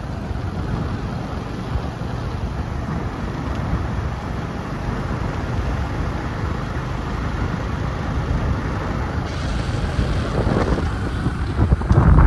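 Wind buffeting the microphone on a moving motorcycle: a steady low rumble of rushing air that grows louder near the end.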